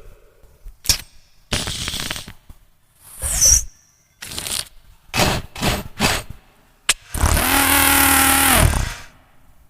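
A beatboxer's vocal sound effects: a sharp click, short hissing and puffing bursts, a high falling squeak, a quick run of percussive bursts, then a long held buzzing tone of about two seconds that imitates an engine.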